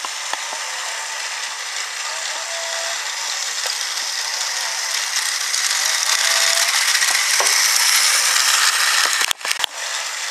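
Plastic gearboxes of a battery-powered Thomas Trackmaster toy train and a motorised toy dinosaur whirring and clattering steadily. The sound grows louder through the middle, with a faint short squeal every few seconds, and briefly cuts out about a second before the end.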